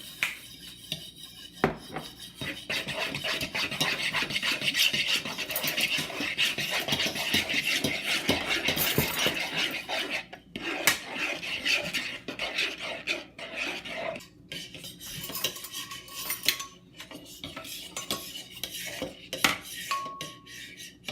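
A utensil stirring and scraping around a bowl of glitter-glue slime mix with lotion and shaving cream, clinking against the bowl. The stirring is continuous for the first half and becomes intermittent scrapes and knocks after that.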